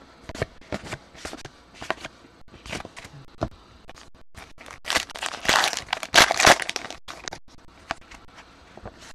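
Trading cards being flicked and slid one behind another in the hands, with short soft clicks every half second or so. Past the middle comes the loudest part, a card-pack wrapper being torn open and crinkled for a couple of seconds, before the card clicks resume.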